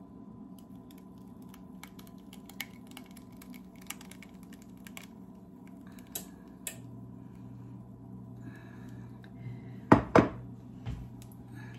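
Glass mixing bowl being tipped to pour pumpkin pie filling into a pie crust, with faint scattered clicks and taps. About ten seconds in come two loud knocks close together, then a softer one, as the glass bowl is set down on the countertop.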